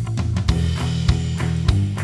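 Background music with a steady drum beat over bass and guitar.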